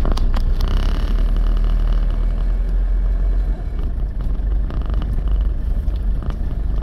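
A vehicle driving, with a loud, steady low rumble of engine and road noise and scattered clicks and rattles over it.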